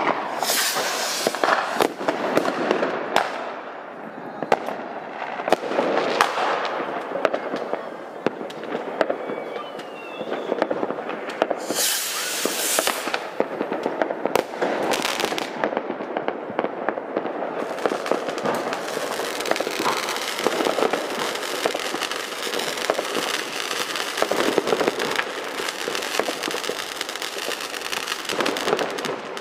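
Fireworks: mortar shells and Roman candles going off in a dense, continuous stream of bangs and crackles. Loud hissing bursts come near the start and again about twelve seconds in.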